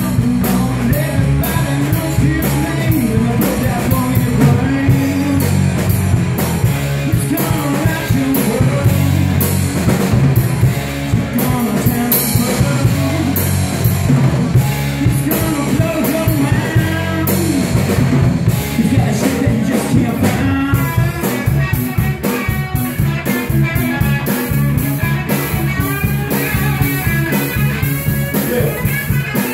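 Live rock band playing: electric bass guitar, drum kit and electric guitar.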